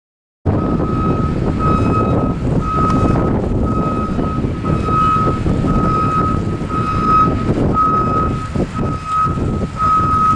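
A vehicle's reversing alarm beeping at an even pace, a little over once a second, over a loud low engine rumble. The sound starts abruptly about half a second in.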